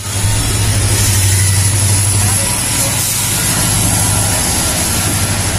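Heavy vehicle engine idling steadily: a loud low hum under a hiss, with a thin high whine above it.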